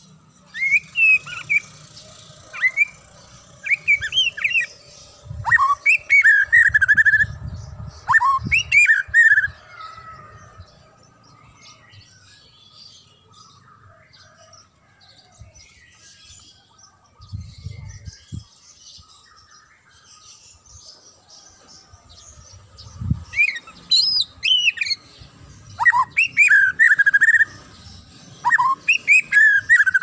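White-rumped shama singing bursts of rich, varied whistled phrases, with sliding notes; it sings for the first ten seconds or so, pauses, then sings again over the last several seconds. A few low thuds sound underneath.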